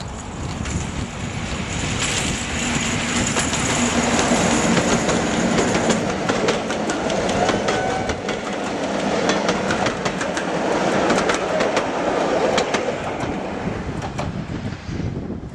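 Diesel locomotive hauling a train of coaches past at speed. The engine swells as the locomotive passes in the first few seconds, then the coach wheels click and clatter over the rail joints as the carriages go by, fading near the end.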